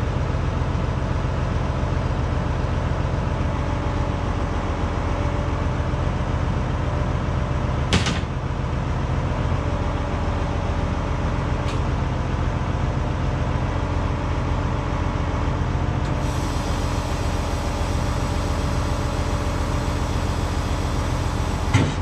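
County tractor's diesel engine running steadily, with a single sharp knock about eight seconds in and another click just before the end.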